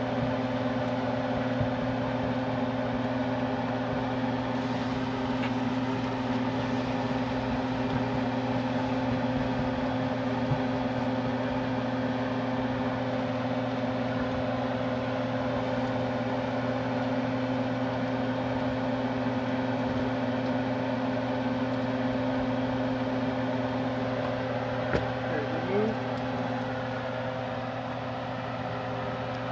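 Steady hum of an electric fan motor running at one constant pitch, with a small click near the end.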